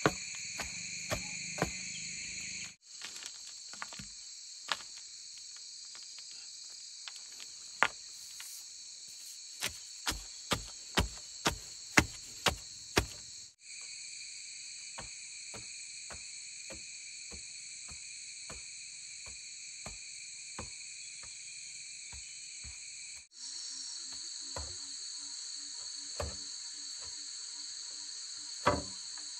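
Steady shrill chorus of insects, crickets or cicadas, with scattered sharp knocks; a quick run of louder knocks, about two a second, comes near the middle. The insect sound breaks off for an instant three times.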